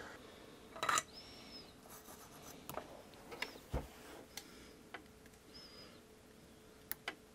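Faint small clicks and rubbing from fingers handling a wire and a soldering iron against a flight-controller board pad during hand soldering. Two brief faint high tones and a faint steady hum sit under it from about halfway.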